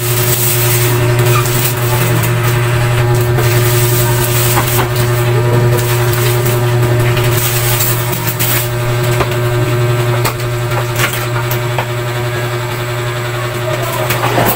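Plastic wrapping rustling and a rice cooker being handled, with scattered knocks as it is lifted and its lid opened, over a steady low hum.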